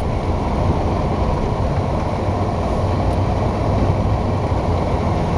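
Steady low rumble of a car driving through floodwater, heard from inside the cabin.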